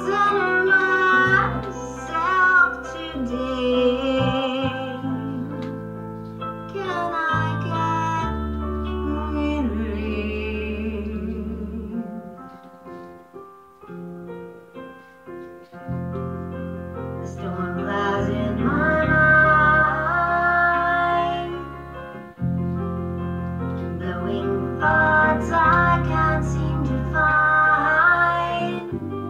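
A song: a woman singing with vibrato over keyboard accompaniment that holds long low notes, dropping quieter for a few seconds in the middle.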